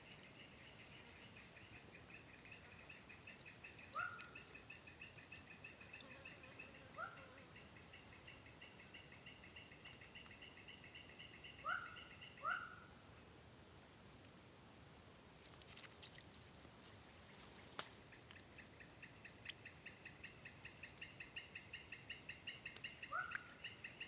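Faint swamp wildlife: an insect's fast pulsed trill that stops about halfway through and starts again later, over a steady high insect whine, with a handful of short rising chirps, two of them close together about halfway through.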